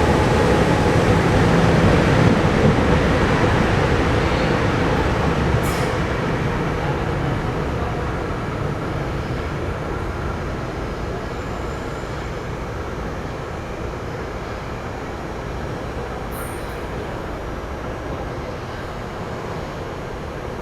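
SEPTA Regional Rail electric commuter train moving along the platform, a steady rumble that fades gradually as it pulls away. There are two brief high squeaks from the wheels or brakes.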